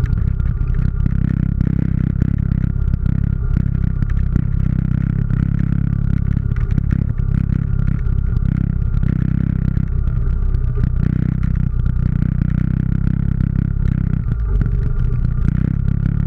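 ATV engine running steadily at low trail speed, with scattered knocks and clatter as it crawls over a rocky trail.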